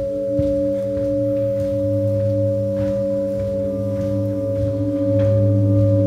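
Ambient drone music: several low and middle pitches held together in a steady, ringing drone that swells slightly about five seconds in, with a few faint soft taps over it.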